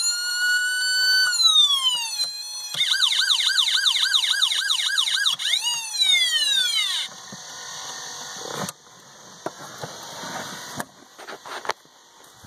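Federal electronic siren sounding: a wail that rises and holds, then falls, switches to a fast yelp of about three quick sweeps a second, and winds down, cutting off about seven seconds in. Faint clicks and handling noise follow.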